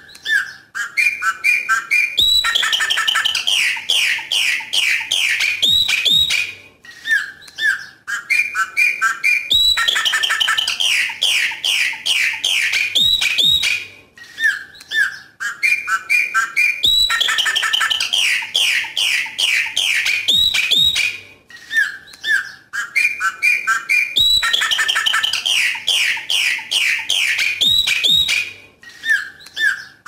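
Chopi blackbird (pássaro preto) singing its 'coqui coqui' song. Each phrase is a few whistled notes that build into a quick run of many loud notes lasting about four seconds, and it repeats with short gaps about every seven seconds, four times.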